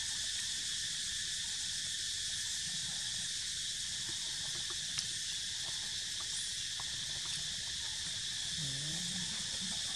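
Steady, unbroken chorus of forest insects: a high drone at several pitches at once. A single sharp click sounds about halfway through.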